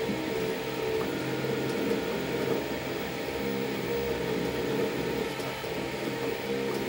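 Velleman Vertex K8400 3D printer printing: its stepper motors whine in short notes that keep changing pitch as the print head moves, over the steady hum of its cooling fans.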